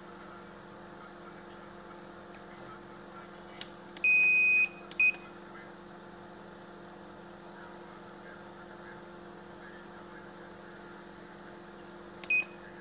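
Steady electrical hum, with electronic beeps from the Sharp washing machine's control panel: a long beep about four seconds in, a short one just after, and another short beep near the end, each after a light click.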